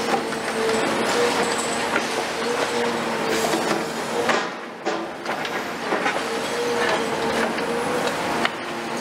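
CAT 336F long-front demolition excavator working, its C9.3 diesel and hydraulics giving a steady hum. Over it come crunching and cracking as the demolition jaws bite into the concrete slab and rubble falls, with a brief lull about halfway through.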